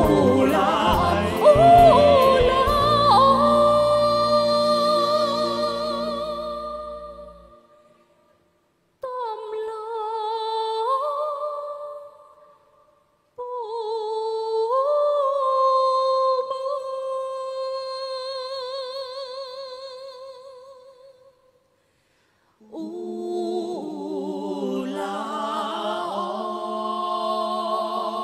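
Band accompaniment with drums and bass fades out over the first few seconds, then a woman sings two long unaccompanied phrases, each ending on a held note with vibrato. Near the end a group of voices comes in together on a sustained chord in harmony.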